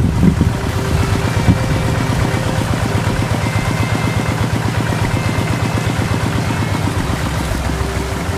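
Two-wheel hand tractor's single-cylinder diesel engine running steadily, a rapid even beat of firing strokes that fades slowly.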